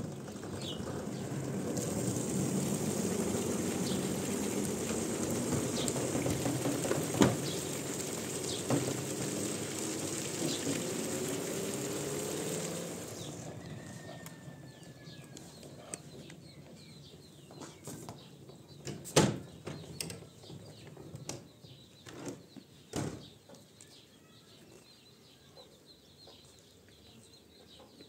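Water pouring from a plastic jerrycan into the tub of a top-loading washing machine for about thirteen seconds, its pitch slowly rising as the tub fills, then stopping. After that it is quieter, with light clicks, two sharp knocks and faint bird chirps.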